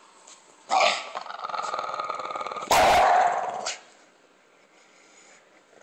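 English bulldog growling and barking at being woken: a sudden outburst about a second in that runs on as a rough growl, then a louder, second-long bark-growl about three seconds in.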